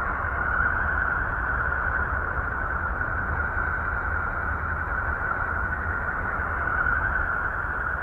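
Space plasma-wave recording converted into audible sound, presented as the sound of Uranus: a steady, hiss-like drone over a low rumble, swelling slightly about a second in and again near the end.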